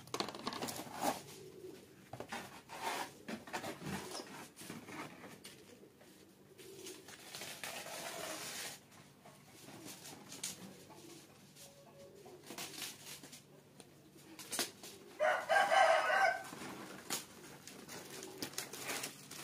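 A rooster crows once, about fifteen seconds in, one call of about a second and a half. Faint scattered clicks and rustles sound throughout.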